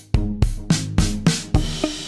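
Background music: a drum-kit beat with hits about three times a second over bass and other instruments.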